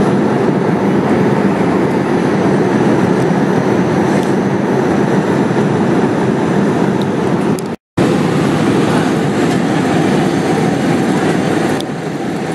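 Steady cabin noise of a jet airliner, an even loud roar of engines and air. The sound cuts out completely for a moment just under eight seconds in, then resumes, a little quieter near the end.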